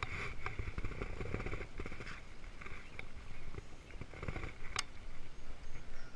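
Handling noise from a baitcasting rod and reel worked by hand: a low, uneven rumble and rustle with a few sharp clicks, the loudest a little under five seconds in.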